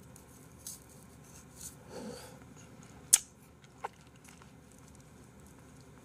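Quiet room tone broken by a few small clicks and soft mouth sounds from eating an ice cream bar on a stick, with one sharp click a little after three seconds in as the loudest sound.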